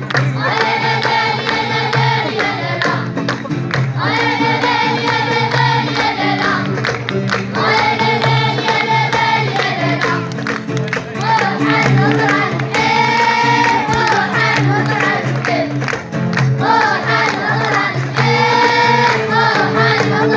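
School choir of young voices singing an Amazigh song in unison, in repeated phrases of about two to three seconds, over a steady sustained low accompaniment.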